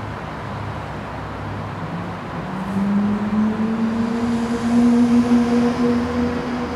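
Outdoor traffic noise under a motor's hum that comes in about two seconds in, rises slightly in pitch and then holds steady.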